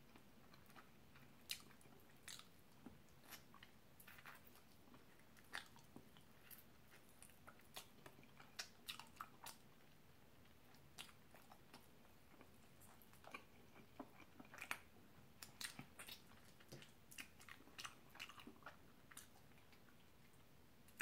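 Faint, scattered wet mouth clicks and smacks of someone chewing buffalo chicken wings and sucking the sauce off her fingers. The clicks come more often in the second half.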